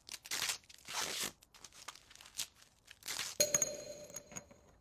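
A run of short rasping, scraping swishes, then about three and a half seconds in a small metal screw lands with a clink and a ringing metallic ping that fades away.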